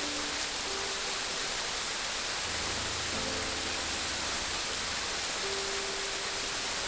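Steady rush of running water, even and unbroken, under soft background music of slow held notes, with a low bass note for a couple of seconds in the middle.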